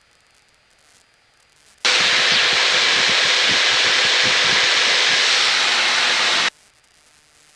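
Aircraft radio static: a loud burst of even hiss through the headset. It switches on abruptly about two seconds in, holds steady for roughly four and a half seconds, then cuts off suddenly, with no voice in it.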